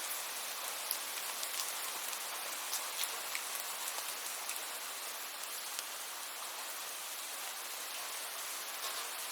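Steady rain falling, an even hiss with many small, sharp drop ticks scattered throughout.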